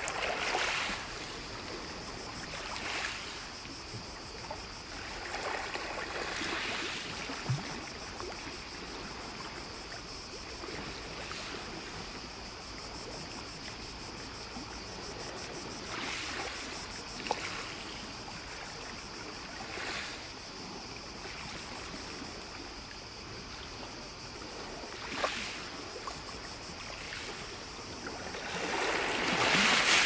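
Small sea waves lapping and washing on a beach, a steady wash of water with a gentle surge every few seconds; the largest surge comes near the end.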